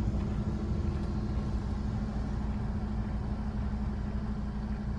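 A car's engine running steadily: a low drone with a constant hum.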